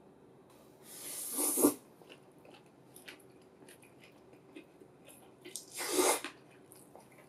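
A person slurping up stir-fried rice noodles with chopsticks: two short, loud slurps, about a second in and again near six seconds in, with faint chewing and small clicks between them.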